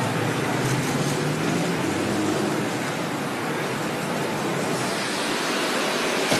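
Steady rushing outdoor noise of vehicles and traffic, with a faint low hum in the first couple of seconds and no distinct events.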